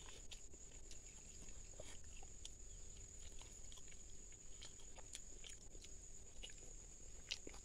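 Faint eating sounds: a man chewing rice and chicken liver eaten by hand, with many small scattered mouth clicks and smacks. A steady high-pitched whine runs underneath.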